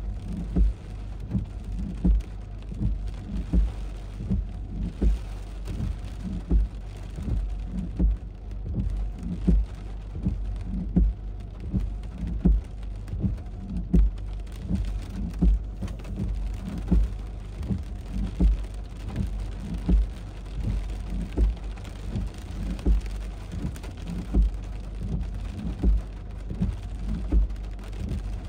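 Heavy thunderstorm rain: a steady hiss of rainfall with low, sharp thuds of drops striking a surface close to the microphone, roughly one a second.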